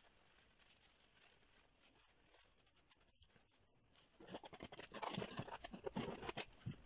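A paintbrush dabbing and scraping on a heavily textured canvas: a rapid run of short, scratchy strokes over the last few seconds. Before it there is faint rubbing of a cloth wiping the paint surface.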